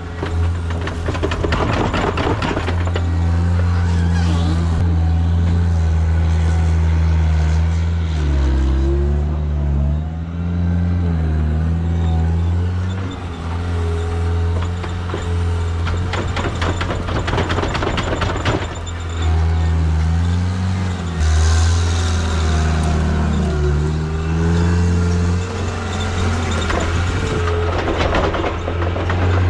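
Diesel engine of a John Deere 323D tracked skid steer running steadily under load, its pitch dipping and recovering several times as it works. Three stretches of clattering ride over it.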